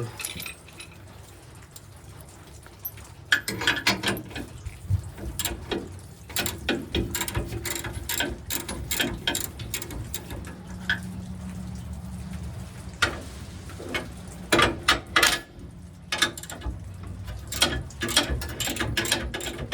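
Irregular sharp metallic clicks and clanks from hand tools working on gooseneck hitch hardware, some of them loud.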